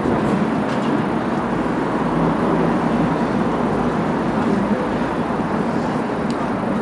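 Steady hum of city road traffic, an even wash of noise with no distinct events.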